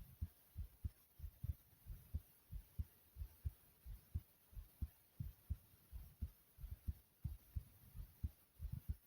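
A human heartbeat: an even run of low thumps, many heard as close double beats, at a slightly fast rate raised by jumping in place.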